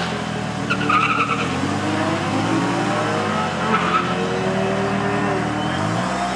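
Two drag cars launching off the line and accelerating hard down the quarter mile, engine pitch climbing and dropping through the gear changes as they pull away.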